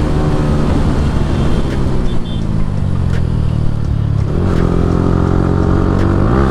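Yamaha R15M's single-cylinder engine running hard under way, heard from the rider's seat, its pitch shifting with a gear change about four seconds in and rising again near the end as it revs up.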